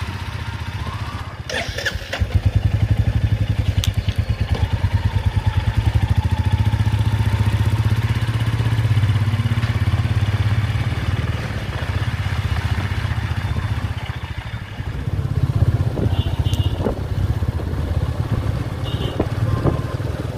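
A motorised two-wheeler's engine running under a rider, a low steady thrum that picks up about two seconds in after a brief clatter. A few short horn beeps sound near the end.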